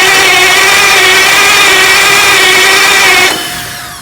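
Starter motor cranking a heavy generator engine with a steady whine that does not catch and fire. About three seconds in the cranking stops suddenly and the whine falls away as it spins down.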